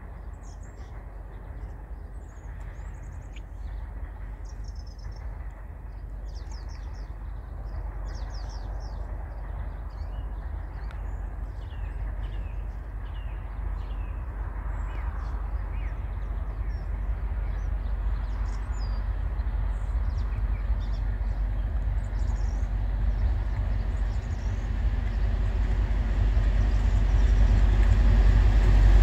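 Two diesel freight locomotives approaching under power, a low engine rumble growing steadily louder as they near. Small birds chirp over it for much of the time.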